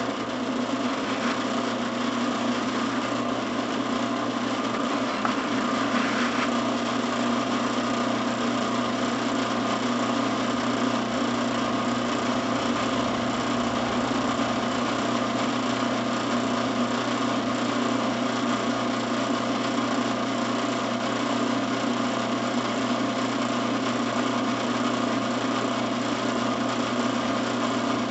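Benchtop drill press motor running steadily while a small twist bit is fed down into a metal piece clamped in a drill press vise, a constant machine hum with no let-up.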